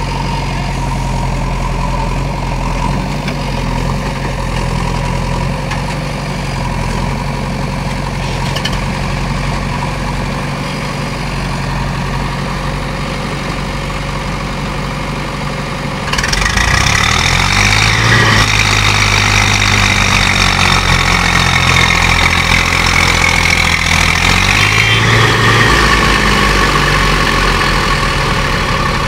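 Diesel engines of a JCB 3DX backhoe loader and a tractor running; about halfway through one engine revs up suddenly and louder, holds high revs under load for about nine seconds, then eases back, as the stuck tractor is worked free of the mud.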